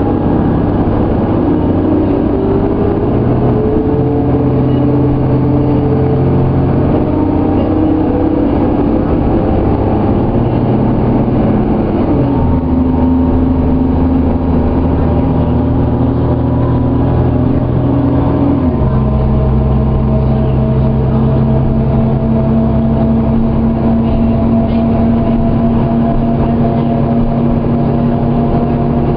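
Interior sound of a 2001 New Flyer D35LF transit bus's Cummins ISC diesel inline-six pulling away under power. The engine note drops suddenly twice, about twelve and nineteen seconds in, as the Allison automatic transmission shifts up. A higher whine climbs slowly throughout as road speed builds.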